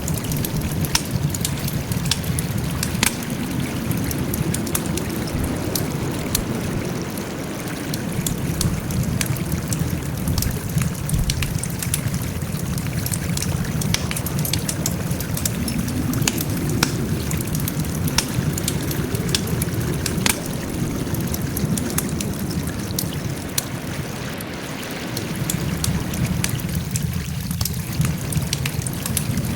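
Wood campfire burning, with many sharp crackles and pops over a steady low rumble of the flames.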